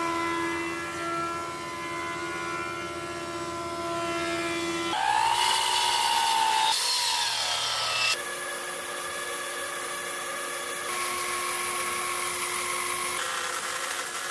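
Woodshop power tools in quick succession, each cut off abruptly: a thickness planer running steadily for about five seconds, then a miter saw cutting, its whine bending up and down in pitch, then steady machine running ending with a bandsaw cutting a hardwood board.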